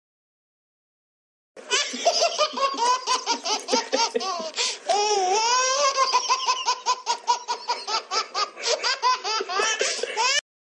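A long fit of hard, high-pitched laughter in a rapid ha-ha-ha rhythm. It starts abruptly about a second and a half in and cuts off abruptly near the end.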